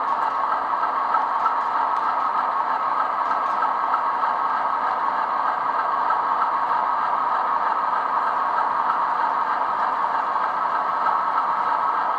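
Model train running on a layout, making a steady mechanical whirring rattle.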